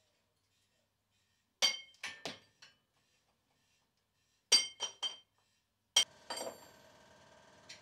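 Sharp metallic clinks of steel parts knocking against metal, in three groups: four quick ones, then three, then a single one. After the last, a faint steady ringing noise carries on.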